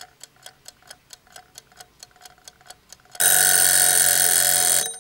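Clock ticking at about four to five ticks a second, then an alarm clock ringing loudly for about a second and a half before cutting off suddenly.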